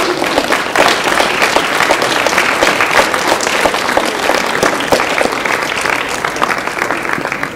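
Audience applauding, a dense steady clatter of clapping that eases off near the end.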